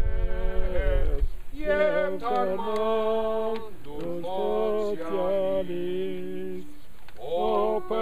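A small group of men and women singing a hymn together without accompaniment, in long held notes, with brief pauses for breath between phrases.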